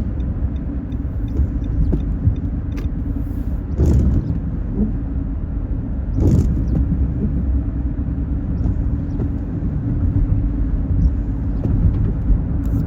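Steady low rumble of a car's engine and tyres heard from inside the cabin while driving, with a constant hum, and two brief knocks about four and six seconds in.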